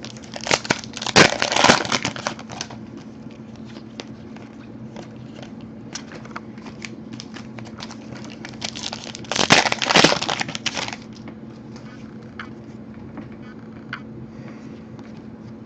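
Trading card packs and cards being handled: two spells of crinkling and rustling, about half a second in and again around nine seconds, with light clicks of cards in between, over a faint steady hum.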